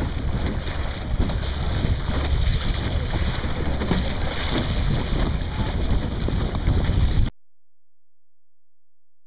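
Wind buffeting the microphone over the rush of water along a Sunfish sailing dinghy's hull, cutting off suddenly about seven seconds in.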